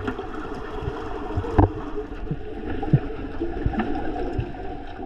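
Muffled underwater sound picked up by a submerged camera: a low, uneven water rumble and sloshing, with a few short knocks along the way.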